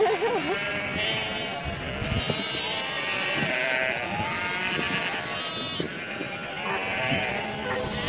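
A large flock of sheep bleating, many calls overlapping one another, with a loud quavering bleat right at the start.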